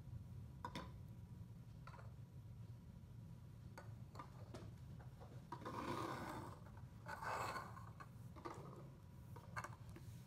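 Plastic toy ducks set down and moved about on a tabletop: scattered light taps and clicks, with two louder stretches of scraping and rubbing about six and seven and a half seconds in as they are slid into place.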